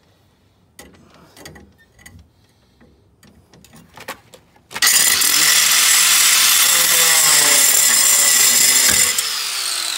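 Angle grinder with a cutting disc starting up about halfway through and cutting into a car's steel coil spring to shorten it, after a few handling clicks and knocks. Shortly before the end the noise drops in level and a falling whine comes in.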